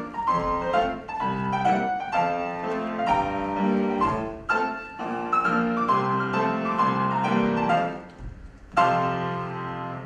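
Solo piano playing a quick classical dance piece, its notes moving fast. About eight seconds in it pauses briefly, then strikes one loud final chord that rings for about a second before cutting off.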